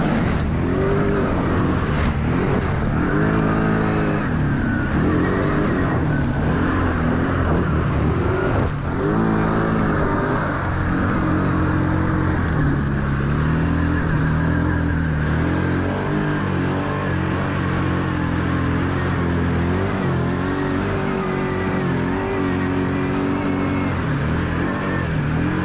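Kawasaki KVF 750 Brute Force ATV's V-twin engine running under load while riding through mud and puddles. It revs up and eases back twice in the first ten seconds, then holds fairly steady, over a constant rush of tyre and water noise.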